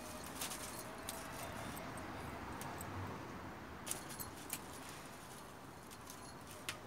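Kittens batting at a dangling toy: a handful of light clicks and scratches, scattered over a steady background hiss.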